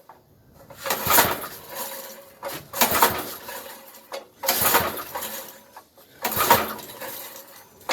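Recoil starter of a 33-year-old Briggs & Stratton 5 hp flathead engine being pulled four times in a row, about every two seconds, the rope whirring as the engine cranks over without starting.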